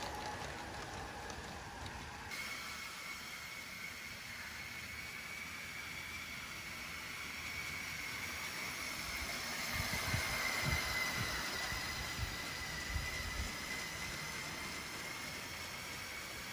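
LEGO model trains running on plastic LEGO track, electric drive motors whining. After a cut about two seconds in, a steady high motor whine holds, sagging slightly in pitch midway. Around ten to thirteen seconds, low knocks come from the wheels running over the track joints.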